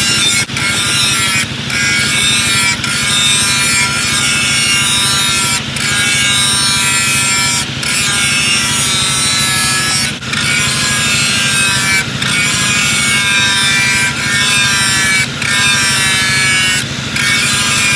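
Angle grinder with an abrasive disc grinding a steel knife blade in repeated passes: a steady high whine over a low motor hum, with short dips every second or two as the disc lifts off the metal.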